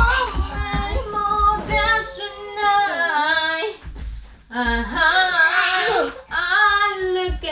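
A song sung in a high, childlike female voice, in phrases with long held and gliding notes and a short break about four seconds in.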